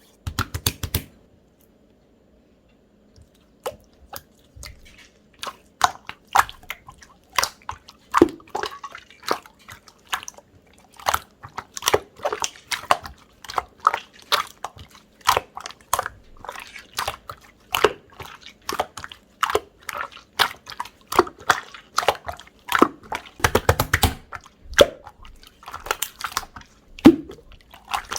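Opaque, chewy mochi-texture slime (chapssaltteok slime) being squished and pressed by hand, making sticky clicks and small air-pocket pops at an irregular pace of about one or two a second. A short burst at the start is followed by a quiet gap before the squishing begins about three and a half seconds in.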